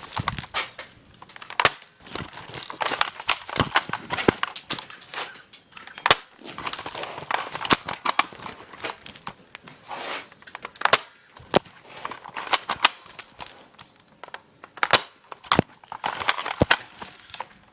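Airsoft guns firing in irregular strings of sharp cracks and snaps, some shots single and some in quick bursts.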